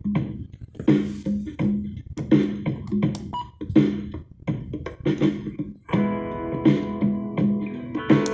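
Instrumental music with a steady beat, played from a USB pendrive by a car stereo head unit (Buster HBD-9380); held chord tones come in about six seconds in.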